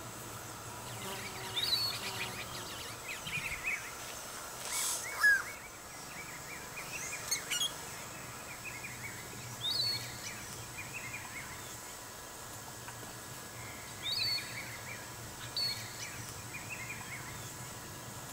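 Yellow-rumped caciques calling at their nesting colony. There are strings of short chattering notes and sharp rising whistles every few seconds, with a brief rasping burst and a loud falling note about five seconds in. A steady background hiss runs underneath.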